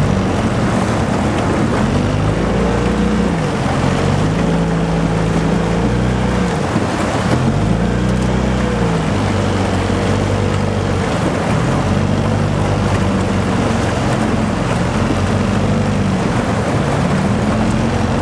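A boat's motor running, its pitch rising and falling again and again, over a steady rush of wind and water noise.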